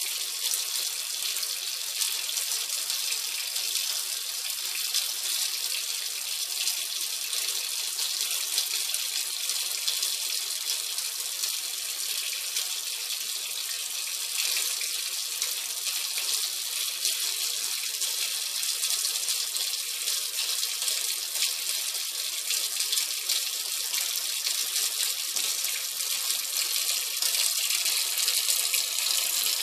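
Kitchen tap running in a thin, steady stream into a stainless steel sink: a steady hiss of splashing water, a little louder near the end.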